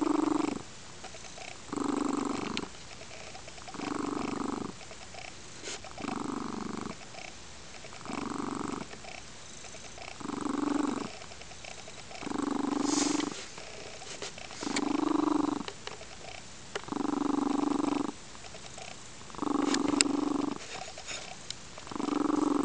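Lynx-point Siamese cat purring loudly, the purr swelling and easing with each breath, a strong phase roughly every two seconds.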